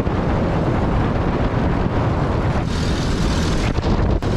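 Car driving along: a loud, steady rumble of engine, road and wind noise, with a single sharp click near the end.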